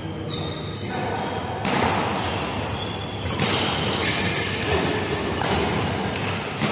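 Badminton rally: a racket strikes the shuttlecock five times, roughly a second apart, with short high squeaks in between.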